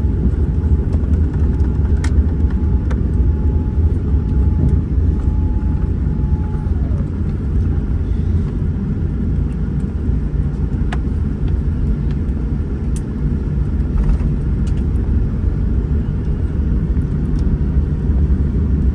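Steady low rumble in the cabin of a Boeing 787-9 Dreamliner, with a thin high whine that holds until about six and a half seconds in and then drops in pitch and fades.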